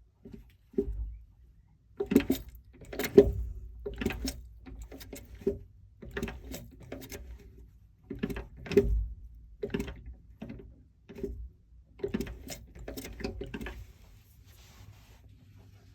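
Irregular metallic clinks and knocks of gearbox parts and hand tools being handled while a small marine reverse gearbox is dismantled. The knocks come in quick clusters, with a few heavier thuds, and die away near the end.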